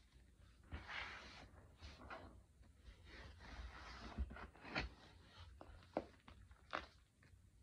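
Crumbly, powdery chalk being squeezed and crushed by hand: faint crunching and rustling, with four sharper crunches in the second half.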